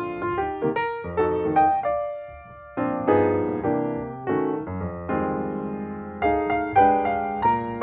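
Background piano music: chords and single notes struck one after another, each decaying, with a short pause a little over two seconds in.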